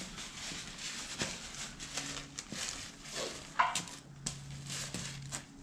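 Irregular light clicks and knocks of hand tools being worked against the front of a bare LQ4 V8 engine block at its timing chain, with a brief high whine about three and a half seconds in.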